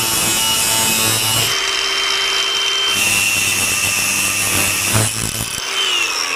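Angle grinder cutting a notch into the metal roller ring of a diesel injection pump. It runs with a steady high whine under load, and near the end it is switched off and winds down with a falling whine.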